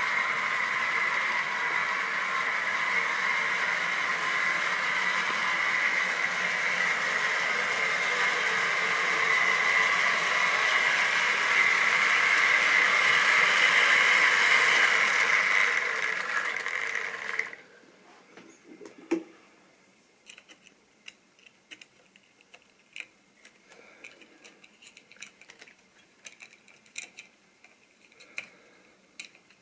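Model railway train running on its track with a steady mechanical running sound. It grows louder toward the middle and then cuts off suddenly about two-thirds of the way through. Faint scattered clicks follow.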